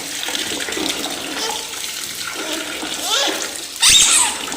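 Water running and sloshing in a baby bath, with a brief high squeal a little after three seconds in and a sudden loud burst of noise at about four seconds.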